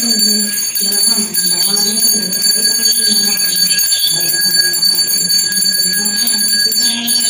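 Small brass puja hand bell (ghanti) rung continuously in the aarti before a Shiva lingam, a steady high metallic ringing.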